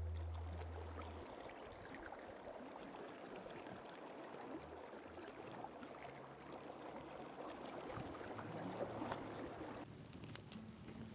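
Fast-flowing river rushing steadily, with music fading out in the first second. Near the end the sound changes to a run of sharp crackles.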